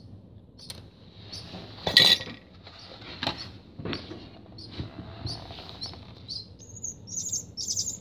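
Barn swallow nestling begging for food with short high chirps, which quicken into rapid, louder chirping near the end. A few sharp clinks and knocks sound in between, the loudest about two seconds in.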